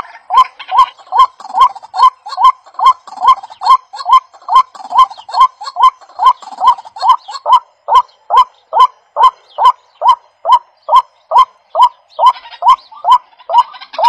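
A short honk-like call repeated at a very even pace, a little over twice a second, each with a sharp click at its start.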